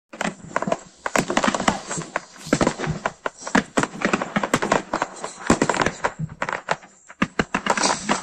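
Fireworks going off: a dense, irregular run of bangs and crackles from bursting aerial shells, with a brief lull about seven seconds in.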